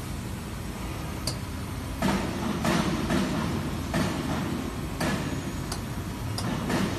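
Spiral orbit bending machine running, its rollers curving an aluminium profile into a ring: a steady low rumble with repeated louder surges about once a second and a few sharp clicks.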